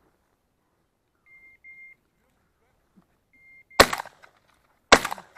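Two shotgun shots about a second apart, loud and close, fired at quail by the shooter wearing the camera. Before the shots, pairs of short high electronic beeps repeat every second or two, like a pointing dog's beeper collar signalling that the dog is on point.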